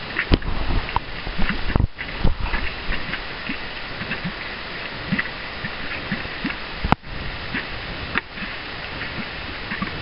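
Thermal vent in white silica sinter hissing steadily, with scattered small pops and a few heavier thumps in the first couple of seconds.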